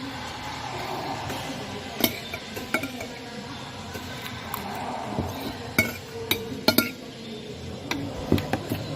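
Tableware clinking: scattered sharp clinks of utensils against dishes or glass, with a cluster of the loudest ones about two-thirds of the way in, over a steady background hum.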